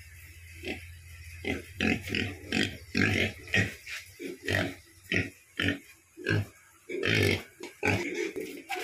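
A hungry pig grunting over and over in short, quick grunts, about two a second, starting about a second in, as it begs at the gate for the leaves held out to it.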